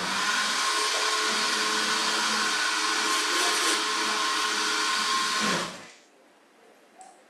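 Small electric chopper's motor running steadily with a whine while it purees chilies, garlic and water into chili sauce, held down by hand; it stops abruptly about six seconds in.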